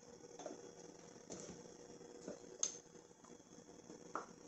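Faint scattered taps and clicks as small spice jars are handled and set back on their wooden stand, the sharpest click about two and a half seconds in.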